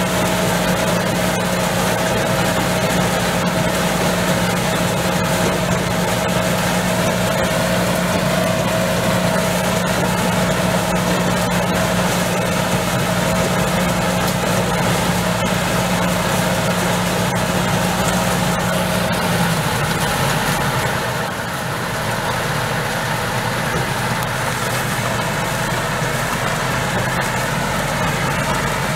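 Corn picker harvesting ear corn, its engine and picking machinery running with a steady mechanical hum. About two-thirds of the way through the hum changes pitch and the sound dips briefly.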